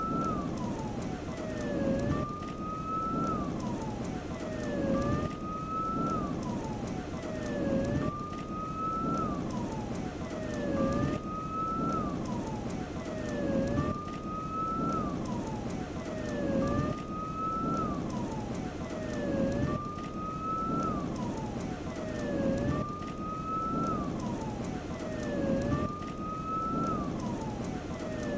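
An emergency siren wails in an even, repeating cycle about every two seconds: each cycle rises slowly, then drops steeply. Under it is a low rumbling, crackling noise that swells with each cycle.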